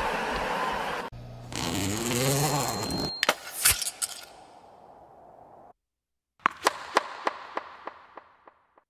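Tennis stadium crowd noise that cuts off about a second in, followed by short end-card sound effects: a brief voice-like sound with a bending pitch, a few sharp cracks, then after a short gap a run of about a dozen sharp taps that grow fainter.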